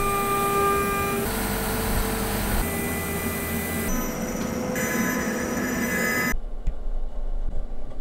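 CNC router spindle milling an aluminium plate with a small end mill: a steady hiss under shrill cutting tones that jump to a new pitch every second or so as the cut changes. About six seconds in it cuts off abruptly and a quieter, uneven sound follows.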